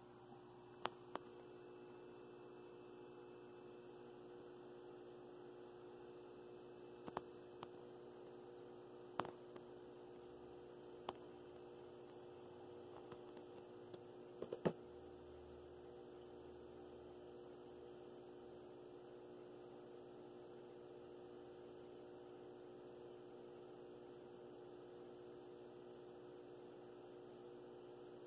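Faint, steady electrical hum, with a handful of short, sharp clicks scattered through it, most of them between about 7 and 15 seconds in.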